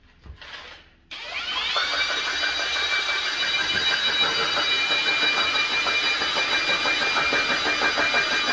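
Cordless drill driving a Malco Turbo Shear head through thin sheet metal. After a short lull and one brief sound, the drill spins up about a second in. It then runs steadily with a high whine and a fast chatter from the cutting head.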